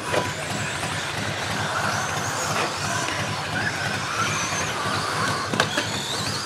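Several electric RC stadium trucks with 13.5-turn brushless motors racing, their motor whine rising and falling in pitch as they accelerate and slow. A sharp knock comes about five and a half seconds in.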